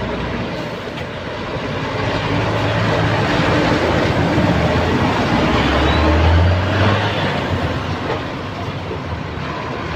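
Heavy dump truck's diesel engine and tyres passing close by on a wet haul road. The sound builds to its loudest about six seconds in, then fades as the truck moves off.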